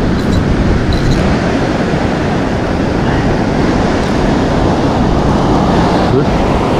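Steady rush of surf with wind buffeting the microphone, an unbroken noise with no pauses.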